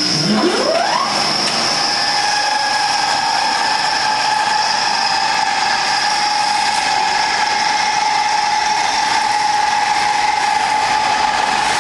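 Small feed pellet mill's electric motor spinning up, its pitch rising over about the first second, then running with a steady whine.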